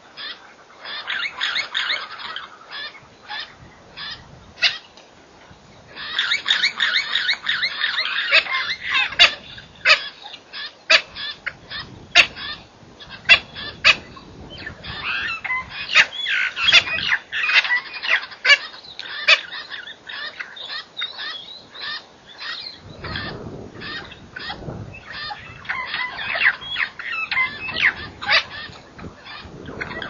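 A mixed group of birds in a thorny shrub, glossy starlings and grey go-away-birds among them, calling and chattering, with many quick chirps and sharp clicks. The chatter is densest about six seconds in and again around sixteen seconds, and a low rumble joins in for the last third.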